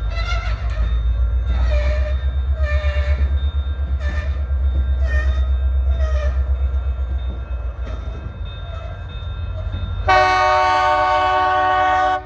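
Freight train of covered hopper cars rolling past with a heavy low rumble and a clatter of wheels about once a second. About ten seconds in, a loud train horn sounds a steady chord of several notes for about two seconds, then cuts off.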